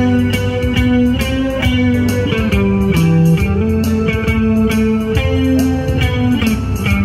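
Guitar music: a guitar playing a melody of held, changing notes over a bass line and a steady beat.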